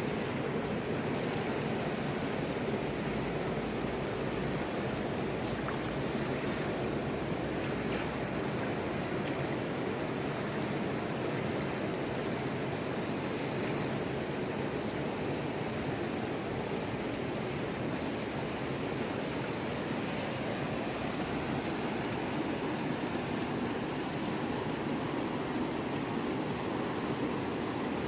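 Fast mountain river rushing over rocks and through shallow rapids: a steady, even rush of water.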